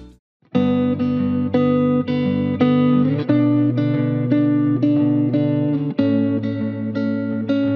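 Sterling by Music Man Cutlass CT30SSS electric guitar in a clean tone, playing rhythmic chords about two a second. The chords start after a half-second gap.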